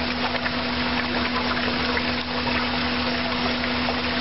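Vacuum truck running with a steady, constant hum while concrete wash water gushes into a steel settling tank.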